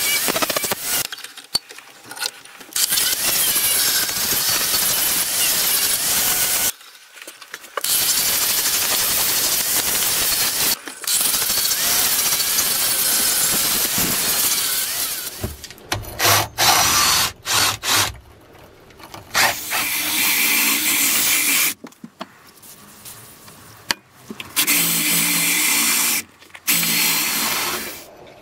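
Ryobi angle grinder grinding a steel axe head, running in long passes broken by brief pauses, then in shorter on-off bursts over the second half. Near the end a power-tool motor whine comes in.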